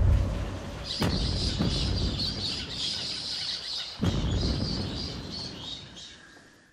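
The deep rumble of an underground blasting charge dies away, then a flock of white cockatoos chatters and screeches, with two more deep thumps about one and four seconds in. Everything fades out near the end.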